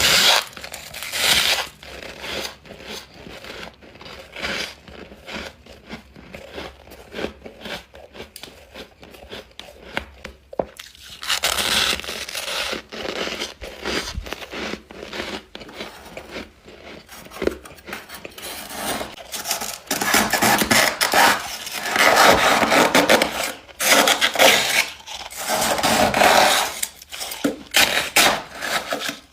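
Close-miked biting and chewing of frosty, squeaky ice chunks: repeated crisp crunches and crackles, with louder stretches of crunching near the middle and in the last third.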